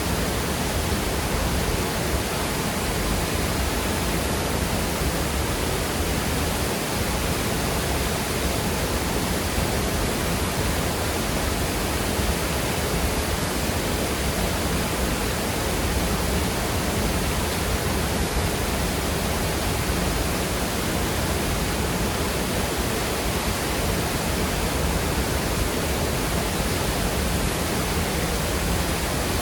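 Waterfall pouring into a fast-moving rocky creek: a steady, even rush of water with no change.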